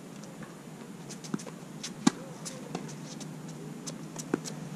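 Tennis ball struck by racquets and bouncing on a hard court during a short-court rally. The sharp pops are spaced unevenly: one about a second and a half in, the loudest about two seconds in, and another near the end.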